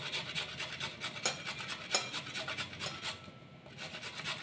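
Fresh carrot being grated on a handheld grater: a fast rasping scrape, about four or five strokes a second, easing off briefly about three seconds in before a few more strokes.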